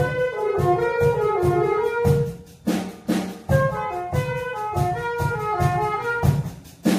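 Saxophone ensemble with clarinets playing a tune live, over a steady drum beat. The playing drops away briefly twice, about two and a half seconds in and near the end.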